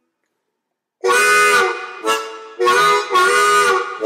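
Background music: after about a second of silence, a harmonica plays a run of loud held chords, about four in three seconds.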